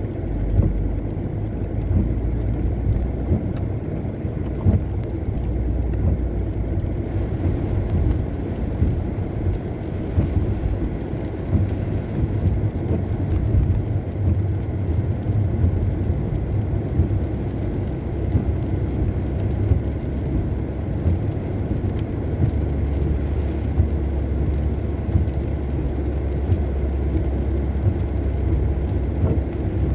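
Car driving on a wet road in the rain: a steady low rumble of engine and tyres with a hiss of spray and rain.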